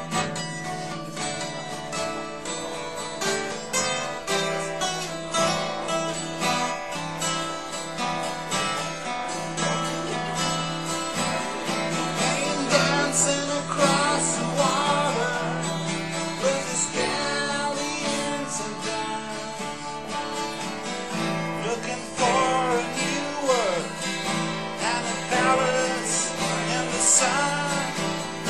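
Background music: strummed acoustic guitar with a steady accompaniment, joined about halfway through by a wavering melody line.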